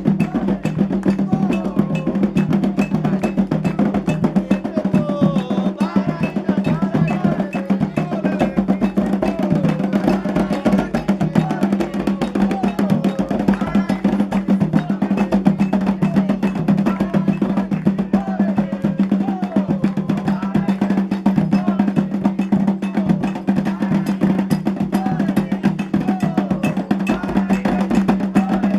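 Candomblé ritual drumming: atabaque hand drums and a struck metal bell playing a fast, steady rhythm, with voices singing over them.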